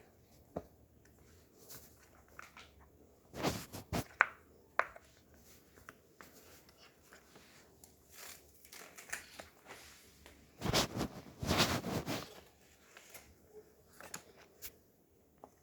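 Hands handling a plastic fidget toy and its packaging: scattered small clicks, taps and scrapes, with two louder crinkling, rustling stretches, one about three and a half seconds in and a longer one about eleven seconds in.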